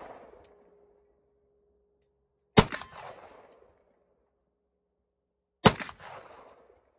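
Two shots from a Smith & Wesson Model 29 .44 Magnum revolver, about three seconds apart, each with a tail of echo lasting about a second. A faint sharp ping follows each shot by about half a second, bullets ringing steel plates at 50 yards, and a steady faint ring of steel hangs on through the first few seconds.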